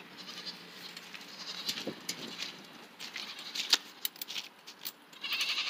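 Goats bleating: a short call about two seconds in and a louder, wavering bleat near the end, over scattered light clicks and taps.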